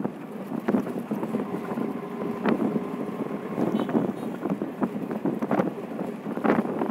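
Auto-rickshaw riding along a road, heard from inside: engine and road noise with frequent irregular rattles and knocks, and wind buffeting the microphone.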